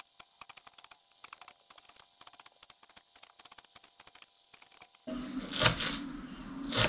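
Kitchen knife chopping green onions on a plastic cutting board: a run of quick, light taps several a second, with a few louder knocks near the end.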